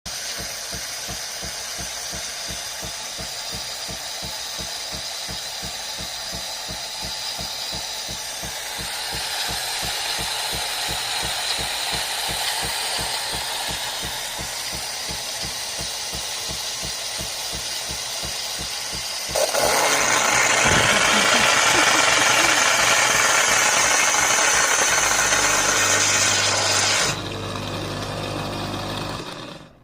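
Coffee machine running: a steady mechanical hum with a fast pulsing rattle. About two-thirds of the way through, a much louder rushing hiss starts suddenly and lasts about eight seconds. It gives way to a lower hum that stops near the end.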